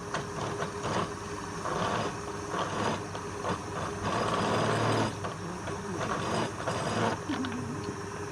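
Wood lathe running with a steady motor hum, and rough, uneven scraping noise from work on the spinning piece that swells and fades.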